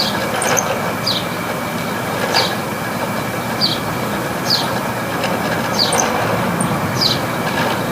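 Room air conditioner running with a steady whir and a faint high whine, broken about every second by short, high, downward-sliding squeaks at uneven intervals. The owner takes the unit for failing, with its compressor in overload and its fan blades sloshing through water.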